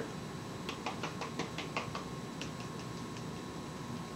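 Chili powder being shaken out of a spice shaker over a tray of cut vegetables: a quick, irregular run of light clicks and taps, about a dozen, stopping about three seconds in.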